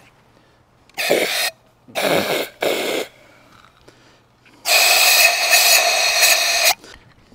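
Can of compressed air duster sprayed through its straw to blow out a brass propane fitting: three short hissing blasts about a second in, then a longer blast of about two seconds with a steady whistle in it.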